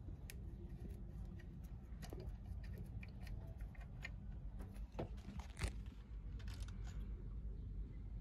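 Faint scattered clicks and scrapes of a hex key turning out the bolts of the idle air control valve on a Mercury 350 Mag MPI throttle body, over a low steady hum.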